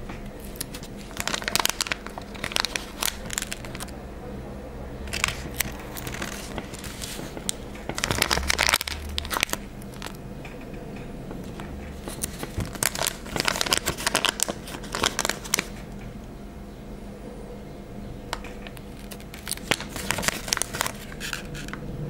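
Fingers handling small glossy paper stickers, peeling them off their sheet and pressing them down onto paper, in short bursts of crinkling and crackling every few seconds.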